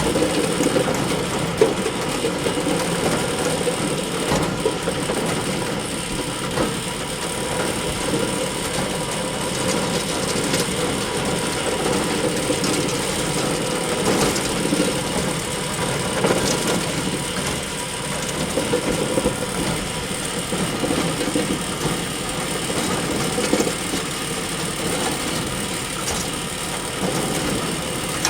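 Hay bale elevator running steadily: a continuous mechanical clatter and hum from its chain conveyor and drive, with scattered clanks.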